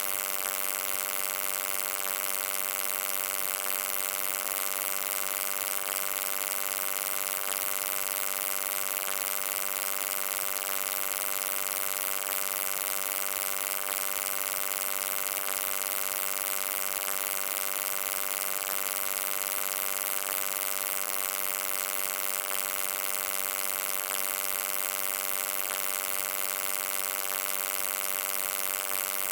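Steady electrical hum: a buzz made of many evenly spaced overtones over a bright hiss, unchanging throughout.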